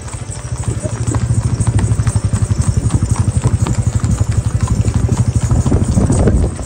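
Horses' hooves clip-clopping over a loud, low engine rumble that thuds quickly and evenly, about eight to ten beats a second, swelling about a second in and easing near the end.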